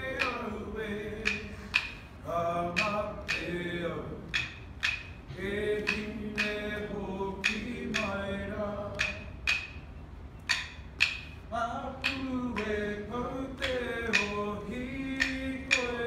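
Unaccompanied singing, voices holding and gliding between notes, over a steady beat of sharp claps at about two a second.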